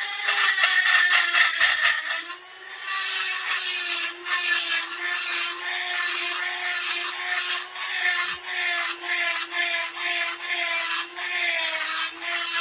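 High-speed rotary grinder running steadily while its bit grinds metal in the ports of a McCulloch S550 chainsaw cylinder, in short repeated passes; the motor's pitch sags slightly as the bit bites.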